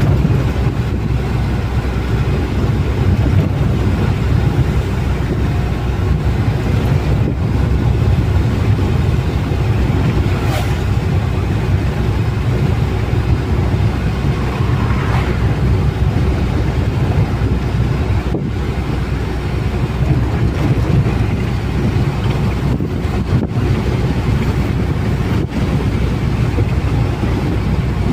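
Truck on the road: a steady low engine and road rumble that holds level throughout.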